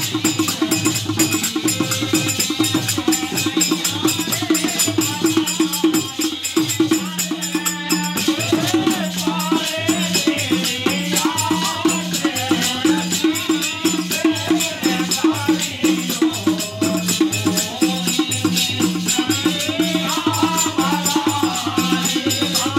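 Live Indian folk music: a harmonium holding steady chords under fast, dense dholak drumming with rattling percussion. A singing voice comes in over it from about nine seconds in.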